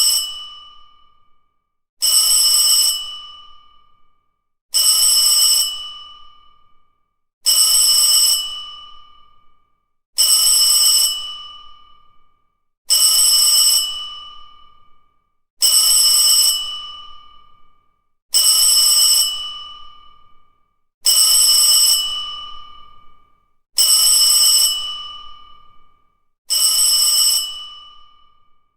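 School bell ringing in short bursts of about a second, each dying away. The bursts repeat about every two and a half to three seconds, about ten times.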